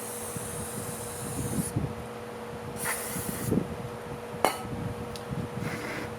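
Short blasts of compressed air from a blow gun, hissing as they blow rinse water out of carburetor parts: a longer blast at the start, a shorter one about three seconds in and a brief one near the end. A sharp click sounds about four and a half seconds in, amid light handling knocks.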